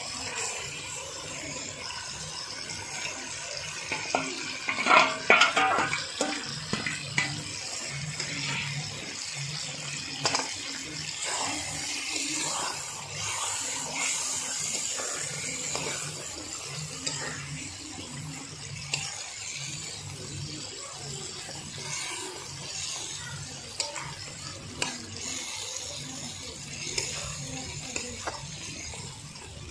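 Chicken leg pieces sizzling in hot mustard oil and spice masala in a pan, with a spatula scraping and knocking against the pan as they are stirred and fried down; the stirring is loudest about five seconds in.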